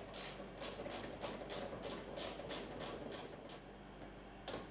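Socket ratchet clicking in a quick, even run of about four clicks a second as a fuel-tank strap bolt is undone, stopping about three and a half seconds in; one sharper click near the end.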